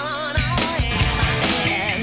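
Rock music with a drum beat and a wavering melodic line.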